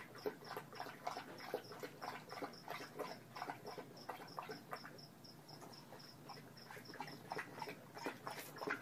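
English bulldog eating from a plastic bowl: irregular clicks and smacks of chewing and lapping. A cricket chirps steadily in the background, about four high chirps a second.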